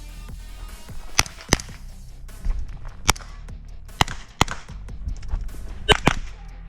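Pistol-caliber carbine firing during a stage run, about seven shots: single shots and quick pairs with short pauses between them as the shooter moves between targets.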